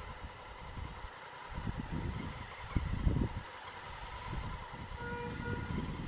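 Honda Africa Twin CRF1000L parallel-twin motorcycle moving slowly through traffic. The engine runs at low revs under uneven wind rumble on the microphone that swells and fades.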